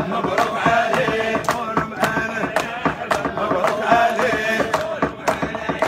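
A group of men chanting a wedding nasheed in Arabic over steady percussion, about two beats a second.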